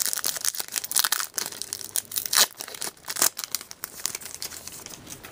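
Wrapper of an O-Pee-Chee hockey card pack crinkling and tearing as it is opened and handled: a run of crisp crackles with a few louder ones in the middle.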